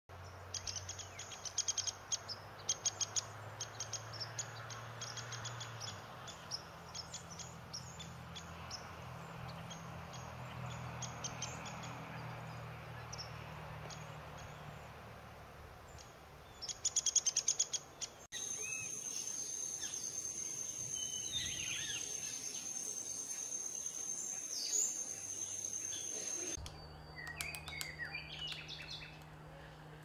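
Red-bellied woodpecker pecking at tree bark: irregular sharp taps, with a quick run of rapid strikes about 17 seconds in. After that come short bird chirps over a steady high-pitched whine.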